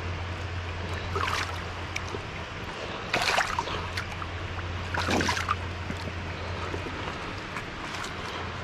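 A big blue catfish thrashing in shallow water, splashing three times about two seconds apart, over a steady background rush of moving water.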